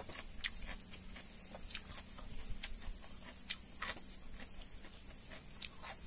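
Steady high-pitched drone of insects, with scattered faint clicks and taps every half second to a second.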